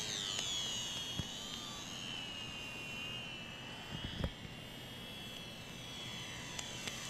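Ultra Micro Radian RC glider's small electric motor and propeller whining high in pitch, the pitch sliding down early on, holding, then fading somewhat after about four seconds as the throttle is eased. A single dull thump about four seconds in.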